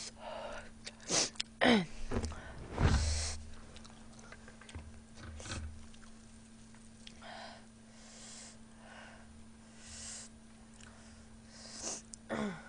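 A person eating very spicy food: short, sharp sniffs and gasping breaths, some with a quick falling pitch, come in the first few seconds and again near the end, with quieter breathing and eating noises between them. A faint steady low hum runs underneath.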